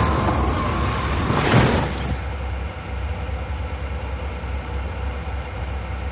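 Car engine idling steadily, heard from inside the cabin. In the first two seconds a loud rushing noise swells and then cuts off.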